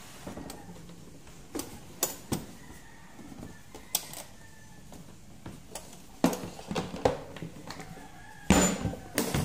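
Hard plastic tool carrying case being handled and shut, a string of short plastic knocks and clicks. More handling knocks follow, and the loudest clatter comes near the end.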